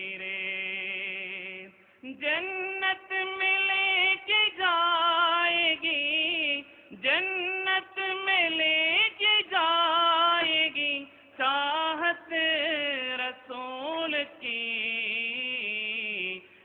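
One male voice singing an Urdu naat, a devotional poem in praise of the Prophet, in melismatic phrases with long held notes at the start and near the end and brief breaks between phrases.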